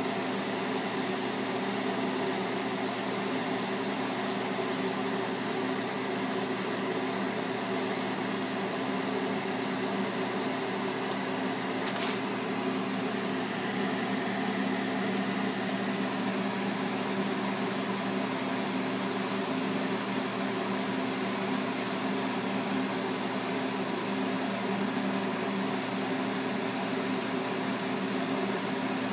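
A bench-mounted lampworking torch burning with a steady hiss, over a constant low hum. One sharp click about twelve seconds in.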